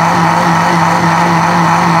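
Electric blender running at a steady speed, grinding peeled oranges into pulp: an even motor hum with a whirring rush over it.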